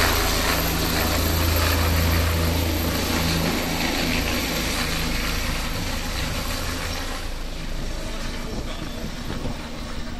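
Bell 427 twin-turbine helicopter flying away after take-off. Its steady low rotor beat and engine noise fade as it climbs off; the low beat drops out about halfway through.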